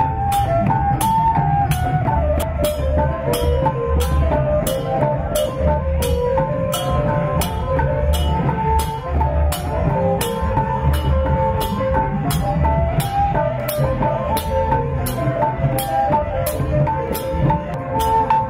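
Khmer festival drum music: long hand drums beaten under a steady sharp beat a little under twice a second, with a melody line held over it.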